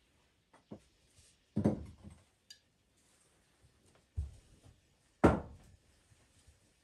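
A handful of separate knocks and clunks of kitchen things being handled and set down on a counter, the two loudest a little under 2 seconds in and near the middle, with a brief light ringing tick between them.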